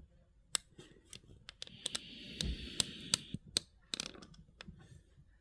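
Handling noise as a camera is repositioned by hand: scattered clicks and knocks, with a stretch of rustling in the middle.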